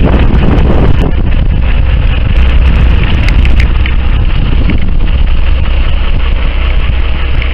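Wind buffeting the microphone on a boat at sea: a steady low rumble, with a few light clicks about a second in and again around three seconds in.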